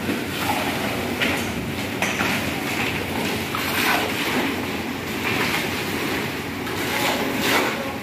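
Ready-mix concrete truck running with its drum turning while wet concrete slides down a chute, under a steady mechanical noise. Shovels scrape and knock through the concrete several times.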